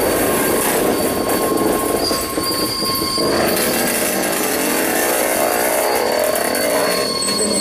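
Freight train rolling slowly along the track, its steel wheels squealing on the rails in several thin, steady high tones over a dense rumble of rolling cars. One of the squeal tones stops about three seconds in.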